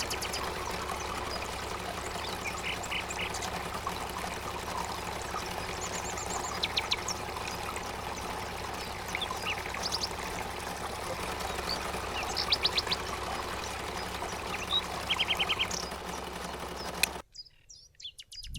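Small birds chirping in short rapid trills over a steady outdoor background hiss, which cuts off abruptly to near silence about a second before the end.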